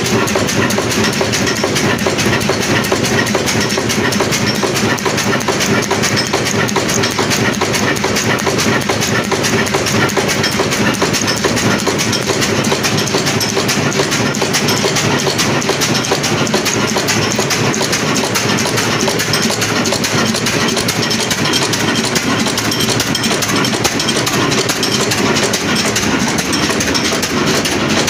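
Old Ruston Hornsby-pattern desi diesel engine running steadily, a loud, dense mechanical clatter that does not let up.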